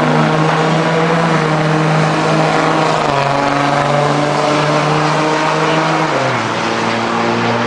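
Two diesel pickup trucks, one a 2008 Ford F-250, accelerating hard down a drag strip with engines running at high revs. The engine pitch drops about six seconds in.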